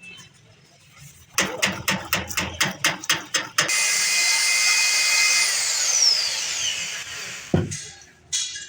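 Workshop tool sounds: a quick run of sharp metallic strikes, about five a second, then a power tool running steadily at high speed with a whine that falls in pitch, and a single heavy thump near the end.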